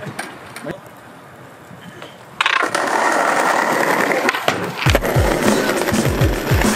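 Skateboard wheels rolling over paving stones, starting suddenly about two and a half seconds in, with a few clicks as they cross the joints. From about five seconds in, the deep, regular kick drum of a hip-hop music track plays underneath.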